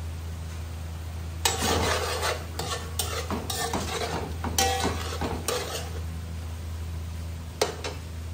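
Metal spoon stirring chicken in a metal pot, with a run of scrapes and clinks against the pot from about a second and a half in until about six seconds in and one more clink near the end, over the sizzle of the simmering sauce and a steady low hum.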